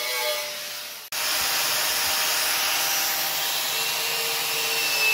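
Electric angle grinder with a wire wheel scouring loose rust off a steel Land Rover Series 3 chassis: a steady whine with a scratching hiss. The sound cuts off about a second in and resumes at once.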